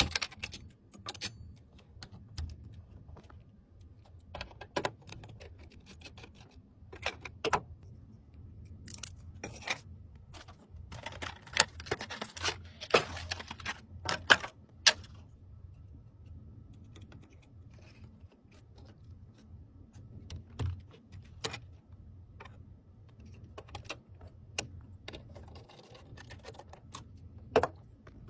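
Irregular sharp clicks, taps and small rattles of hard parts being handled, with a busier stretch of rustling and clicking about ten to fifteen seconds in: PC components being handled and fitted during a build.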